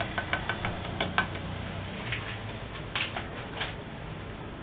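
Faint, scattered clicks and scrapes of a spoon against a stainless steel saucepan as milk is stirred to dissolve gelatin.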